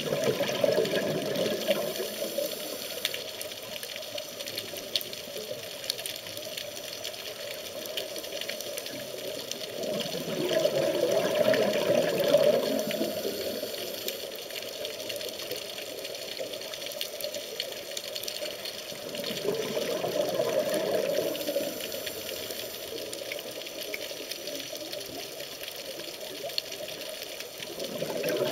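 Scuba diver's regulator breathing underwater: bubbling bursts of exhaled air lasting two to three seconds come about every nine seconds, with a steady hiss in between.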